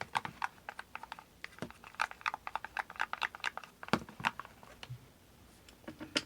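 A stirring utensil clicking and tapping against a container while mixing glue with shaving foam and food colouring, in quick uneven clicks that pause about four and a half seconds in and resume briefly near the end.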